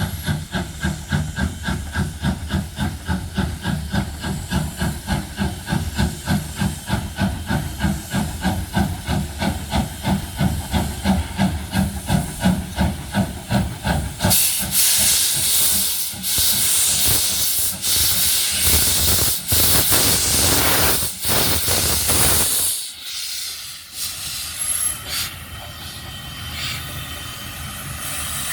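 Steam locomotive Polson Logging Co. No. 70 working, its exhaust chuffing in a steady quick beat. About halfway a loud steam hiss takes over for several seconds, then drops away suddenly to quieter running.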